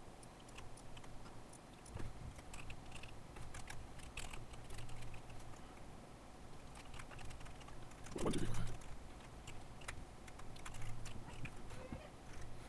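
Typing on a computer keyboard: irregular runs of keystroke clicks, with one short louder noise a little past eight seconds in.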